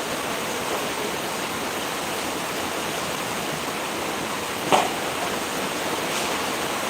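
Steady, even rush of heavy rain, with one short louder noise a little past the middle.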